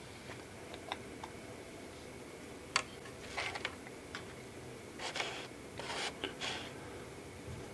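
Faint handling noises at a workbench: a few light clicks, a sharper click a little under three seconds in, then several short rustles and scrapes as materials for a speaker-cone repair are handled.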